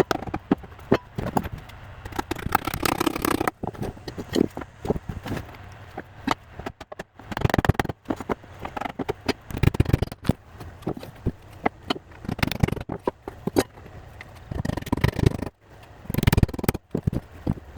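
Irregular knocks and taps on wooden boards, with scraping and handling noise between them, as the four sides of a wooden beehive brood box are fitted together and struck with a hammer and rubber mallet.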